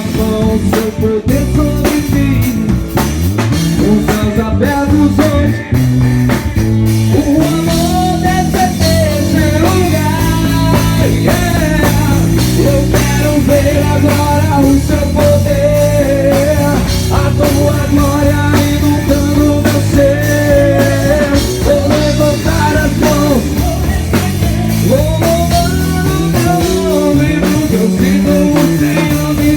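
Live gospel rock band playing: drum kit, bass and electric guitar, with a melody line of long held notes that bend in pitch.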